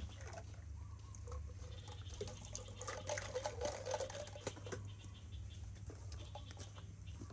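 Two baby macaques making faint, brief calls and scuffling about, with scattered small clicks over a steady low hum; the sounds bunch up about three to four and a half seconds in.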